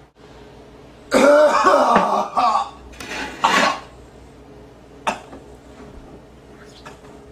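A man coughing and clearing his throat loudly: a long hacking bout about a second in and a shorter one a little later. A single sharp click follows, about five seconds in.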